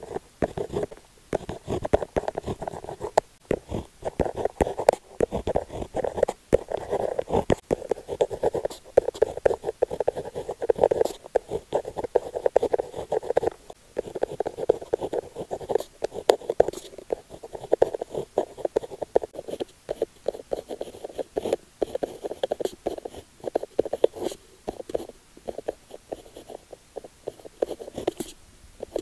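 Retractable rollerball pen writing on paper: the tip scratches and glides in quick, irregular strokes with short pauses between them.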